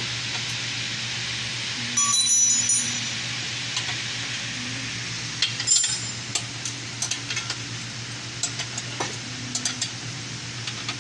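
Metallic clinks and light taps over a steady low hum: a ringing clink about two seconds in, a sharper one near six seconds, then scattered small taps.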